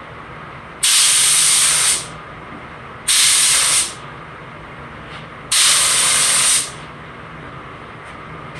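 DeVilbiss StartingLine HVLP spray gun spraying single-stage gloss black paint in three short bursts of hiss, each about a second long. These are test passes to check the spray fan pattern.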